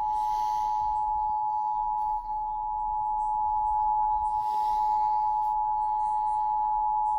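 Emergency Alert System attention signal: a steady two-tone alert at about 853 and 960 Hz sounding together, over faint radio hiss.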